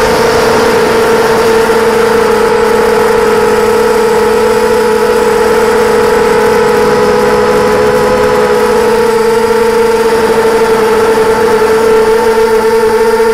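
Quadcopter's electric motors and propellers whining loudly and steadily in flight, picked up by the onboard camera, the pitch holding nearly level with a slight wobble about two-thirds of the way through.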